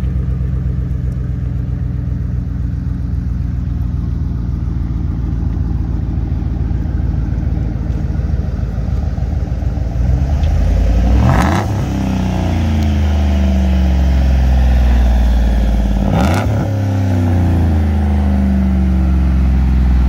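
Chevrolet Tahoe V8 running through a custom muffler-delete exhaust: a deep steady idle, then revved up twice, about ten and sixteen seconds in. Each rev has a sharp crack near its peak.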